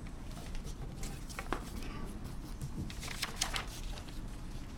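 Sheets of paper being gathered and rustled at a podium, with a few short rustles and light clicks over a steady low hum.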